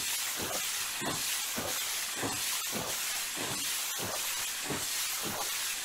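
High-pressure spray lance hissing steadily as its jet strikes a ship's steel hull, with a soft pulse repeating about every half second.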